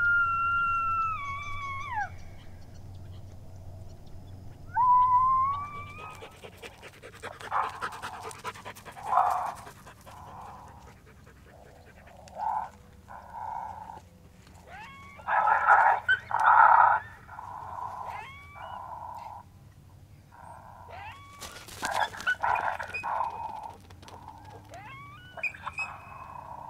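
Coyote vocalizations: a long howl that falls off and ends about two seconds in, a second rising howl, then repeated bursts of barks and yips.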